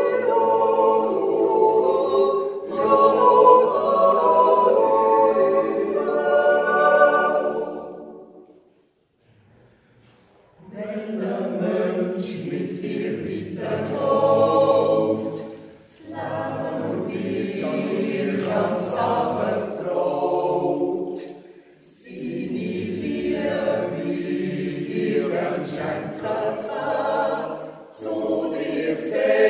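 Mixed choir of men and women singing a Swiss yodel song (Jodellied) a cappella in sustained chords. A phrase ends about eight seconds in, a pause of about two seconds follows, and the singing resumes in several phrases.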